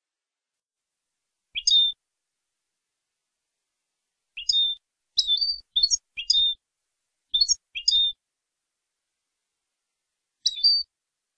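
European goldfinch giving short, sharp chirped notes, singly or in quick pairs, in three or four bursts with dead silence between them.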